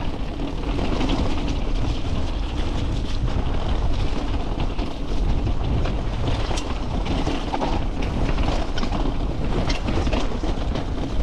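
Mountain bike riding down a wet, rocky trail: a steady rumble of tyres over stones, with frequent clatter and rattling from the bike, heard through a bike- or helmet-mounted action camera.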